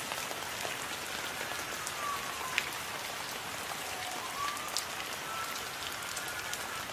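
Steady rain falling, with scattered sharp drop ticks and a faint tone in the background that slowly falls and rises.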